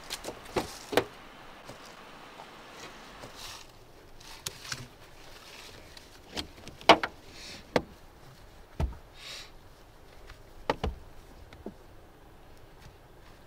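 Handling noises in a car: a dozen or so scattered knocks and clicks against the door and interior, with clothing rustling, as a limp body is pulled across the seat. The loudest knock comes about seven seconds in.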